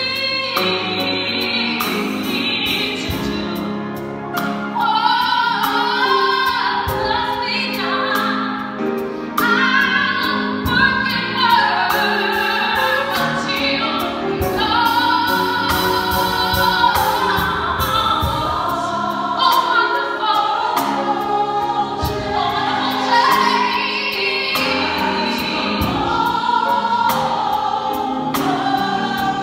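Gospel choir singing live in full harmony, backed by a drum kit keeping a steady beat.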